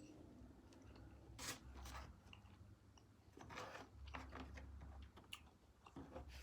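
Faint close-up chewing of food, with a few soft clicks and crunches.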